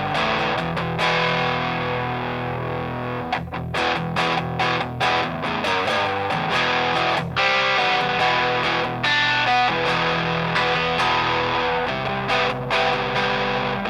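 Electric guitar played through a Grindcustoms Feng Drive overdrive pedal: strummed chords ringing with overdrive distortion, with quick picked single-note runs partway through.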